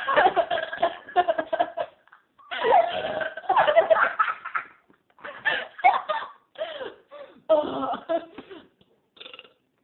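People laughing hard in repeated bursts, broken by short pauses and trailing off near the end.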